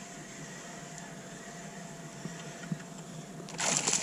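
Spinning reel being wound slowly, a faint steady whir. About three and a half seconds in, a sudden loud splash of water as a fish strikes at the soft-plastic lure right at the surface.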